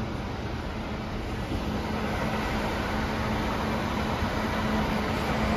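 Motorcoaches idling, a steady diesel rumble with a constant low hum, growing slightly louder partway through and cutting off suddenly at the end.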